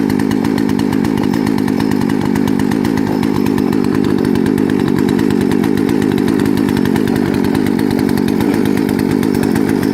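Two-stroke gasoline chainsaw engine running steadily at an even speed, neither revving nor cutting.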